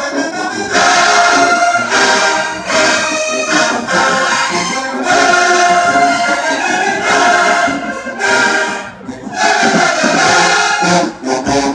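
Marching band brass playing loud sustained chords in short phrases with brief breaks between them.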